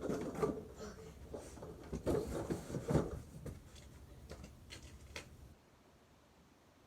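Irregular knocks, clicks and rubbing of objects being handled, busiest in the first three seconds and thinning out. It stops abruptly about five and a half seconds in, leaving only faint room tone.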